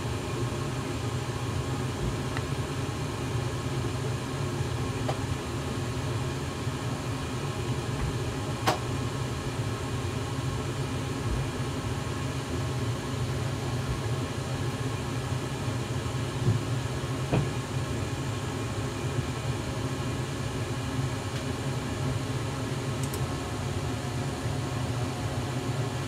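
Lennox Elite G60 gas furnace firing: its three burners lit and its variable-speed draft inducer motor running at the higher speed, giving a steady low hum, with a couple of faint ticks. The furnace is in the stage of its heating cycle just before the circulating blower starts.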